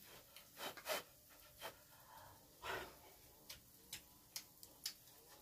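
Faint, short breathy puffs from a person, a pair about a second in and another near the middle, followed by four sharp clicks in the second half.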